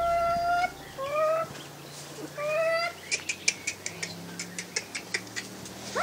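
Domestic hens calling: three drawn-out, slightly rising calls in the first three seconds, followed by a run of short sharp ticks at about three or four a second.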